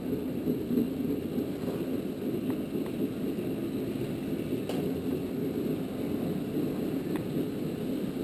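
Go-kart running around a track at speed: a steady, muffled running noise with no clear engine note, and a few faint clicks.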